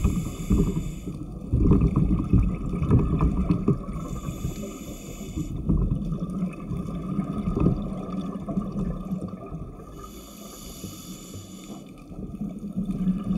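Underwater sound picked up inside the camera housing on a dive scooter: the scooter's motor runs with a steady hum, and three rushing surges of scuba exhaust bubbles come about every five seconds.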